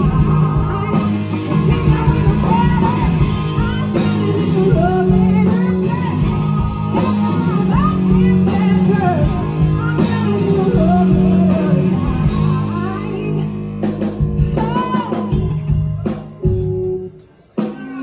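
Live blues-rock band: a woman singing over electric guitar, bass and drums, heard from the crowd. The music drops out briefly near the end.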